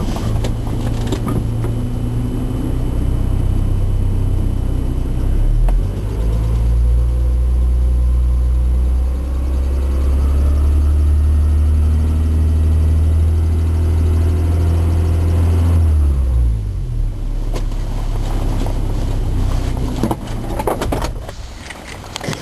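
Car engine running with a steady low hum. Its pitch steps up about six seconds in and drops back about sixteen seconds in, and knocks and handling noise come near the end as the sound falls away.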